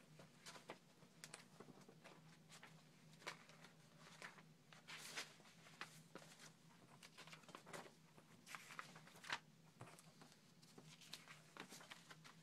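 Faint paper handling: pages, photo stills and clippings in a folder being leafed through and shifted by hand, with scattered soft rustles and ticks, a longer rustle about five seconds in and a cluster of them near the end.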